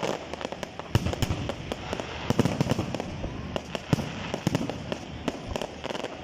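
Aerial fireworks going off in a rapid, irregular string of bangs over steady crackling, with a few louder reports standing out among them.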